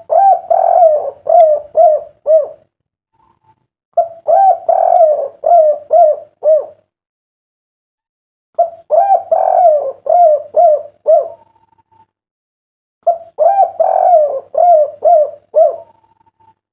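Derkuku dove cooing its 'kuk 3' song, a clear phrase of a longer opening coo followed by a quick run of short coos. The phrase is repeated four times, about every four and a half seconds.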